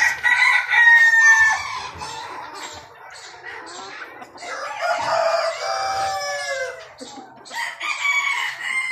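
Caged chickens: roosters crowing three times in long calls, about a second in, midway and near the end, over hens clucking.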